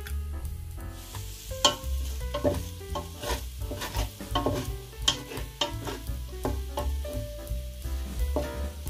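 Spatula stirring and scraping food in a hot frying pan, with sizzling that picks up about a second in and sharp scrape strokes every half second to a second.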